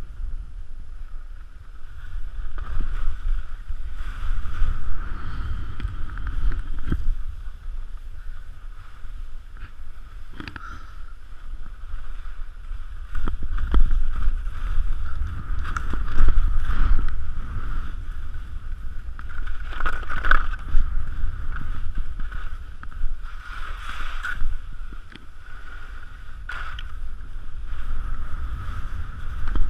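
Wind rushing and buffeting over a camera microphone worn by a downhill skier. Skis scrape and hiss over wind-crusted snow in uneven surges, loudest around the middle and near two-thirds through.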